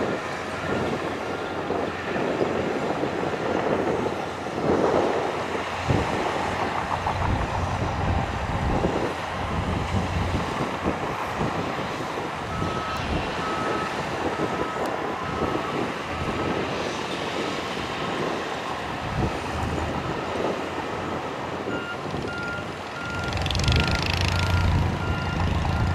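Shantui bulldozers' diesel engines running steadily under load as they push dirt, with a reversing alarm beeping in spells. Near the end the engines grow louder and there is a brief rushing noise.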